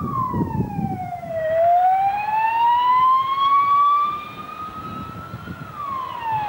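Slow wailing siren on a course car with a roof light bar. Its pitch falls for about a second and a half, climbs slowly for about four seconds, then falls again near the end, over a low rumble.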